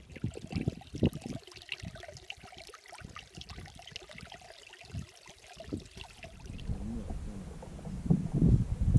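Footsteps and rustling through wet, tussocky grass, with irregular swishes and crunches and trickling water. Wind rumbles on the microphone near the end.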